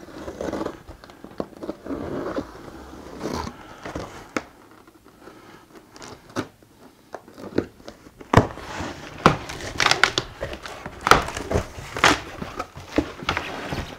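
Box cutter slicing along the packing tape on a cardboard box. About eight seconds in, the cardboard flaps are pulled open, with a run of sharp crackles and knocks.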